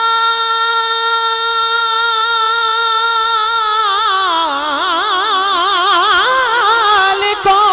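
A man singing a naat into a microphone: one long held note that, about three and a half seconds in, dips in pitch and breaks into a wide, wavering melismatic run, then settles on a higher held note near the end.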